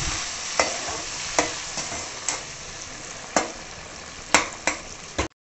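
Chopped tomatoes sizzling in hot butter with fried garlic in a kadai, stirred with a perforated steel skimmer spoon that knocks sharply against the pan about eight times. The sizzle grows gradually quieter and cuts off suddenly near the end.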